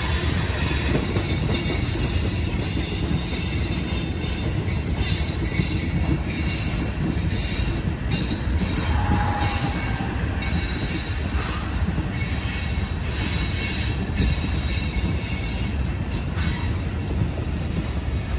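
Coal hopper cars of a freight train rolling past: a steady low rumble of wheels on rail, with clacks over the rail joints and faint high-pitched wheel squeal coming and going.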